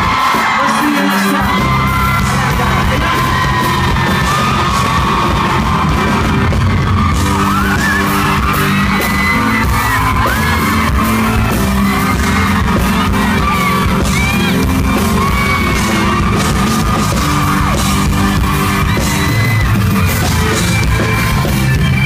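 Live pop band playing loudly, with the crowd yelling, whooping and singing along over the music. The bass and drums come in about a second in.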